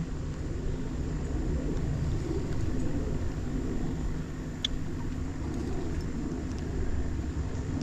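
Low, uneven rumble of wind on the microphone over the steady hum of an electric trolling motor pushing a jon boat slowly along, with a single faint click about four and a half seconds in.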